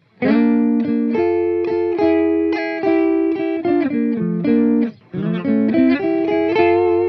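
Electric guitar playing a single-note melody through an Electro-Harmonix Intelligent Harmony Machine pitch-shifting pedal, set to add a harmony a third below in D minor, so each note sounds as two parallel pitches. Two phrases, with a brief break about five seconds in.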